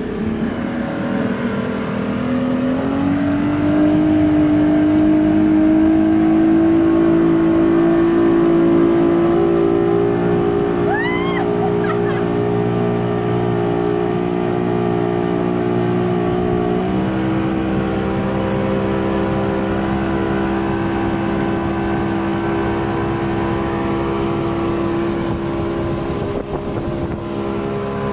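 Speedboat's outboard motor running hard under tow load, its pitch rising as it speeds up about three seconds in and then holding steady, with a slight shift in pitch about seventeen seconds in. Water rushes in the wake behind the boat.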